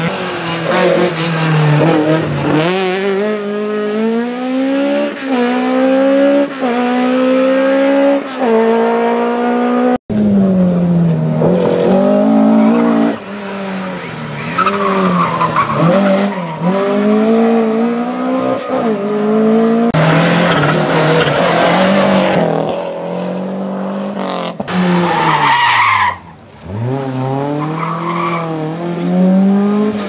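Classic rally cars driven hard one after another. Their engines rev up through the gears in repeated rising steps, and their tyres squeal as they slide sideways through corners.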